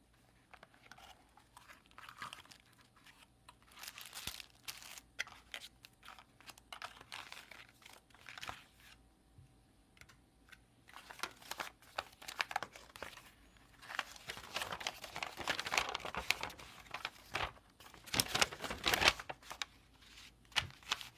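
Packaging being handled, crinkling and tearing in irregular bursts that grow denser and louder in the second half.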